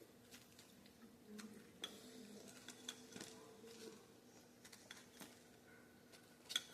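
Quiet chewing of crispy fried crab: faint, scattered sharp crunches and mouth clicks, about one every second, over a faint low hum.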